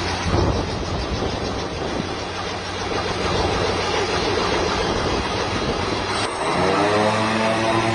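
Engine of a homemade helicopter running with a loud rumble. About six and a half seconds in it revs up, and its pitch rises and settles into a steady higher hum.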